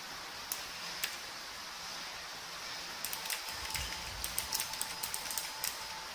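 Fuhlen SM680R mechanical keyboard with clicky blue switches being typed on: two single key clicks in the first second, then a quick, irregular run of keystrokes from about halfway, over a steady hiss.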